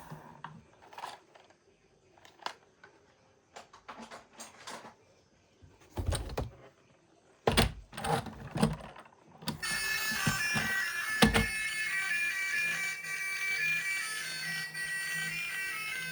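A few scattered knocks and clicks, then about nine seconds in a reedy electronic tune starts and plays on steadily, with one sharp knock shortly after it begins.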